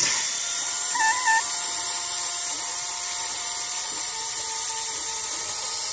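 Water spraying under pressure from a ruptured PVC pool pipe at a threaded fitting, a steady hiss.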